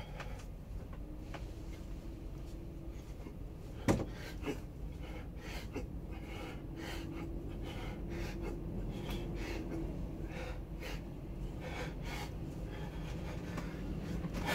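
A man breathing hard and panting with effort as he hangs from a bunk and raises his legs overhead, with a series of short sharp breaths. One sharp knock about four seconds in.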